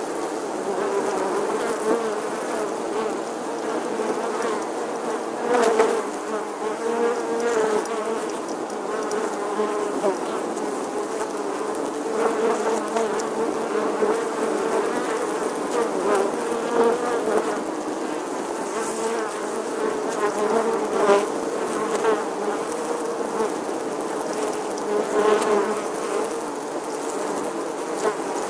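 Many honeybees buzzing together at an apiary: a steady, dense drone of overlapping wavering tones, with a few brief clicks.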